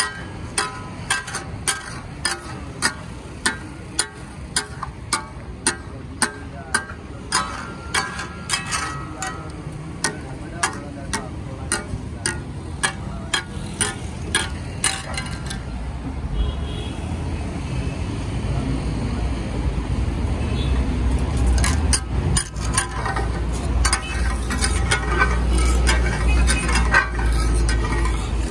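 Flat steel spatula-blades striking and scraping a large flat steel taka tak griddle in a steady metallic clack, about two strikes a second, while meat sizzles. About halfway through the strikes stop and a low rumble rises. Irregular clatter of the two blades chopping returns near the end.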